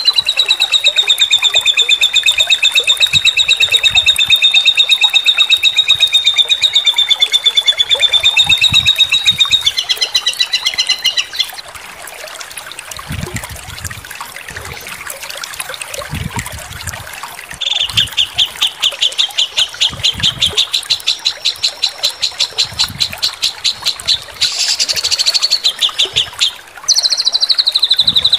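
Songbird song from a masteran tutoring recording: a long, very fast ringing trill, a softer stretch in the middle, then a run of rapid sharp repeated notes, a higher buzzy phrase and a falling trill near the end.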